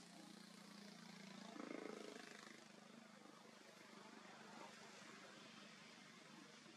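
Near silence: faint outdoor ambience, a steady low hum under an even hiss, swelling slightly a little under two seconds in.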